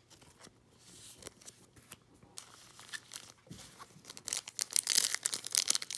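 Foil wrapper of a Donruss Optic football card pack crinkling as it is handled, faint rustles at first, then loud crackling and tearing from about four seconds in as the pack is worked open.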